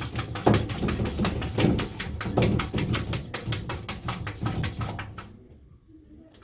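A fast, even run of sharp taps or clicks, like typing, that stops about five seconds in.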